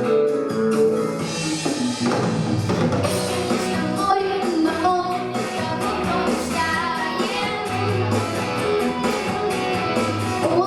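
Music: a song's backing track with guitar and drums, and a young girl singing over it.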